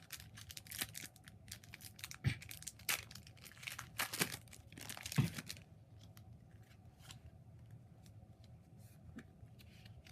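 Foil wrapper of a Pokémon trading card booster pack being torn open and crinkled: a quick run of tearing and rustling over the first five or six seconds, then only a few faint scattered rustles.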